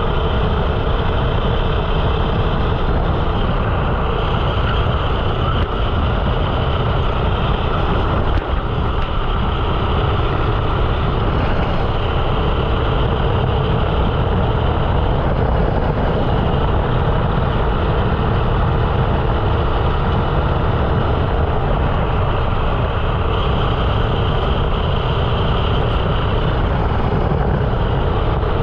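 13 hp rental kart engine running continuously on track, heard onboard at close range and at a steady loudness throughout.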